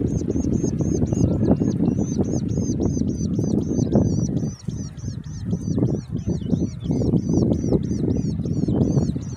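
A woodshrike nestling begging: a rapid series of short, high calls, about four a second. Underneath is a loud low rumbling noise that dips briefly about halfway.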